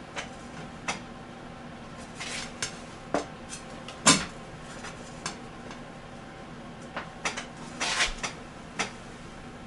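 Scattered light clicks and knocks of small hard parts being handled and adjusted as a freshly fastened part is straightened on an electric bike. The loudest knock comes about four seconds in, and a quick run of clicks follows near the end.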